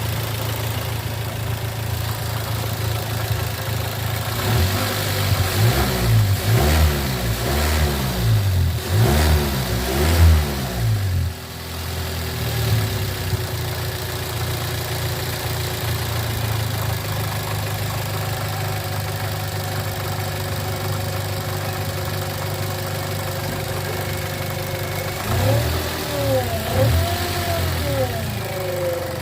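Toyota Avanza 1.3-litre four-cylinder engine idling, blipped about five times in quick succession early on, settling back to a steady idle, then blipped about three more times near the end. The revving is a test for a howl from the front pulleys that the mechanic traces to the alternator.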